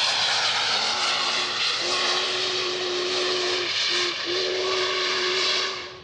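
Union Pacific Big Boy steam locomotive and its freight train running close past at speed: a loud, steady rush of exhaust and rolling wheels. A low chime whistle sounds from about a second in, in a long blast, then a short one, then another long one. The noise drops off suddenly just before the end.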